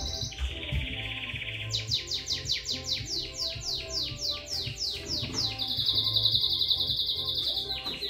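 A songbird singing: buzzy high trills alternating with a run of rapid descending chirps, about three or four a second, over quiet background music.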